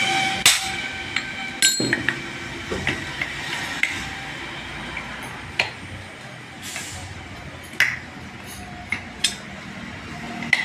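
Hammer blows on a steel propeller-shaft universal joint resting on an anvil block, knocking the cross (spider) and its yoke apart: about ten sharp metallic strikes at uneven intervals, some ringing briefly.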